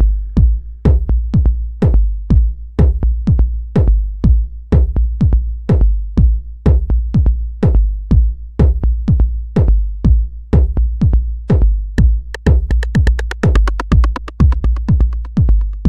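Electronic dance music with a steady drum-machine kick and deep bass, about two beats a second. About three-quarters of the way in, a fast, rapidly repeating synth pattern joins on top.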